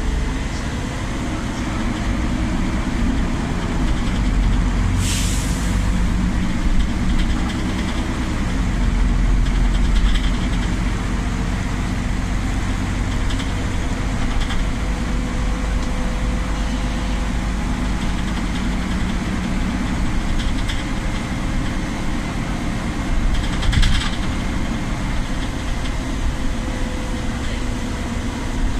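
Inside a Solaris Urbino 12 city bus: steady engine and drivetrain drone with a faint whine running under it. A short hiss of compressed air from the pneumatic system comes about five seconds in, and a fainter one near the end.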